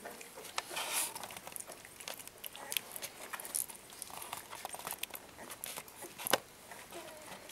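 Newborn puppies suckling and shuffling against their mother while she licks them: irregular soft smacks, clicks and rustling on the blanket, with one sharper click about six seconds in.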